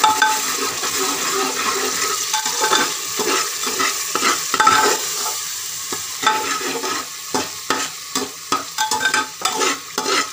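Onion-tomato masala with spices sizzling steadily as it fries in a pressure cooker, while a slotted steel spoon stirs and scrapes it against the pot in repeated strokes, which come more often in the second half.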